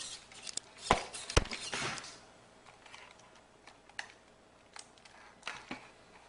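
Handling clicks and knocks, two sharp loud knocks about a second in, then a few scattered faint clicks, as the camera and the wiring are fumbled while the speaker is being switched on.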